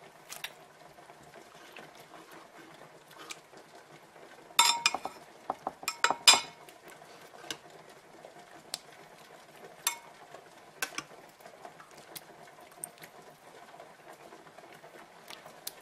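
A spoon clinking and scraping against a pot and a ceramic baking dish as meat sauce is ladled out and spread. The loudest clinks come in two short clusters about five and six seconds in, with lighter single taps scattered after.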